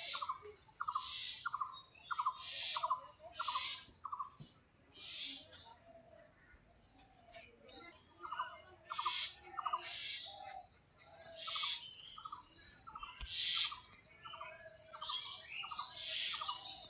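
Birds calling: a run of short, evenly repeated hooting notes, a little over two a second, pauses for about four seconds after the first few seconds and then resumes. Harsher rasping calls come in between, roughly once a second, over a steady high-pitched whine.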